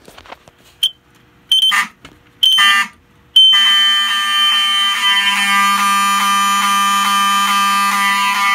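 Fire alarm horns on a 24 V DC panel, Wheelock 7002T horn strobes and a Wheelock 34T horn, giving three short blasts and then sounding continuously from about three seconds in: a steady high piercing tone over a buzzing, pulsing lower horn. This is the system going into alarm.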